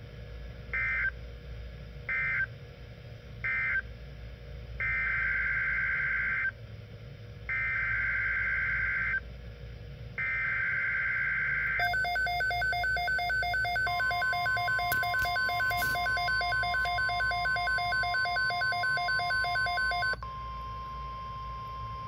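Digital alert code bursts from a Midland weather alert radio tuned to NOAA Weather Radio: three short warbling chirps closing the previous message, then three longer warbling data bursts that carry the header of a new alert. Then comes the radio's own pulsing alert beep, about three pulses a second, with a steady single alert tone starting under it and running on alone for a few seconds after the beeping stops.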